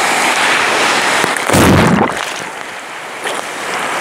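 Sea surf washing and breaking around a phone at water level. About one and a half seconds in, a wave hits the microphone with a sudden loud, low splash-thump lasting about half a second, the loudest sound here. The surf is a little quieter afterwards.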